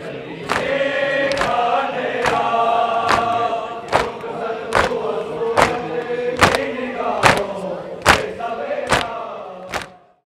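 A crowd of men chanting a mourning lament (noha) in unison while beating their chests (matam) in time, a sharp beat a little more than once a second. The sound cuts off abruptly near the end.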